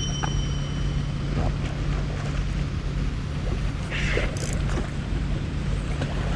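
A boat engine running with a steady low drone, under wind and surf noise, with a brief hiss about four seconds in.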